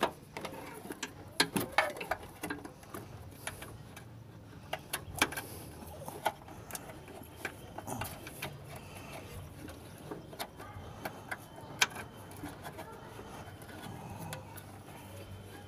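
Irregular clicks, taps and knocks of hands working a new accelerator cable into place among the metal parts of a Maruti 800's engine bay, with a few sharper knocks standing out, over a faint steady low hum.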